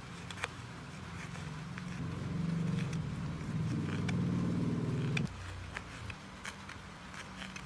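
A low, steady motor hum that grows louder for about three seconds and then cuts off suddenly, with scattered light clicks and taps.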